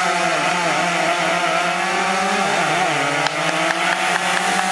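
Engine held at high revs, its pitch dipping slightly about two and a half seconds in and climbing back.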